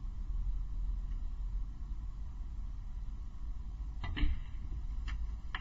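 Snooker balls on the table during a shot: three sharp clicks, the first and loudest about four seconds in and the others about one second and half a second after it, over a low steady arena hum.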